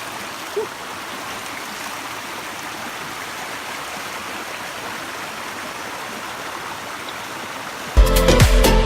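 Steady rushing of a mountain stream's cold running water. About eight seconds in, loud electronic dance music with a strong beat cuts in over it.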